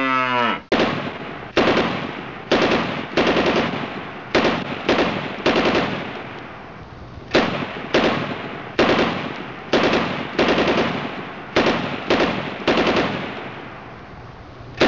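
A rapid string of 12-gauge shotgun blasts, each a sharp crack with a decaying echo, coming irregularly one every half second to second.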